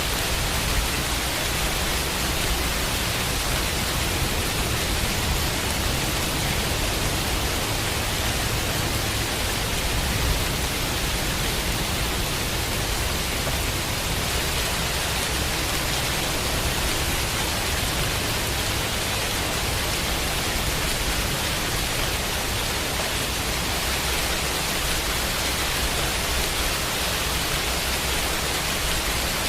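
Steady, dense rain making an even hiss, mixed with white noise, unchanging throughout.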